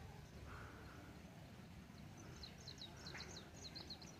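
A small bird's quick series of short, high chirps about halfway in, over a faint low rumble.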